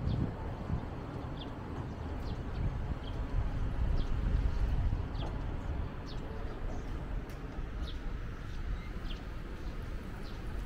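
Outdoor city ambience: a steady low rumble, with short high bird chirps at irregular intervals throughout.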